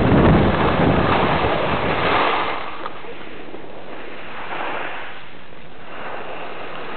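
Wind buffeting the microphone of a skier moving downhill, dropping after about two and a half seconds to a steady hiss of skis sliding over snow, which swells twice with turns.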